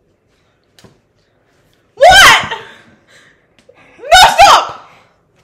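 Girls laughing loudly in two bursts, about two seconds in and again about four seconds in.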